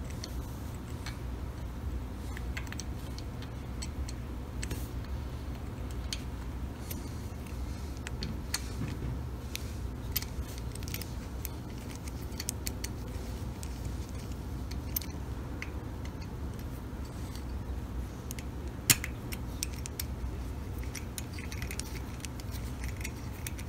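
Light metallic clicks and ticks, scattered and irregular, as a small hand tool turns and seats the screws of a Harley-Davidson timing cover, with one sharper click about three-quarters through. A low steady hum lies underneath.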